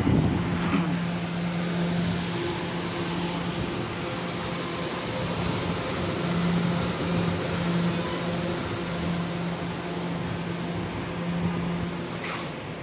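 R211 subway car standing at the platform with its doors open, its onboard equipment humming steadily, with a low tone that comes and goes. A brief sharp knock or clatter near the start and another near the end.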